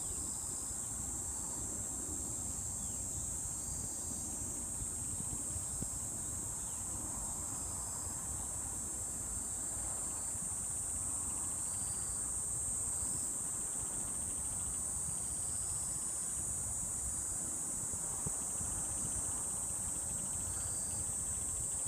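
Steady, high-pitched insect chorus, unbroken throughout, over a low rumble.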